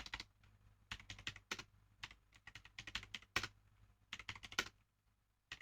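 Faint mechanical keyboard keystrokes clicking in short, irregular runs of typing.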